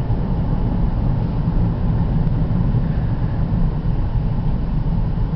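Steady road and engine rumble heard inside a car's cabin while driving.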